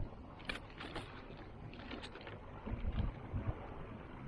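Sounds of a kayak on the water: a few light clicks and knocks, and a low rumble of wind on the microphone about two-thirds of the way through.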